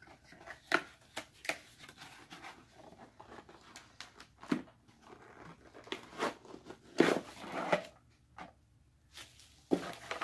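Handling of a white paperboard product box as its flaps are opened and its plastic-wrapped contents pulled out: scattered short crackles, rustles and scrapes, the loudest about seven seconds in.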